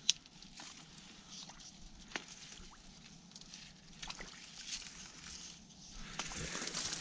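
Dry reed stalks rustling and crackling as a long stick is pushed through them, with a sharp snap right at the start and scattered clicks, turning into a denser rustle near the end.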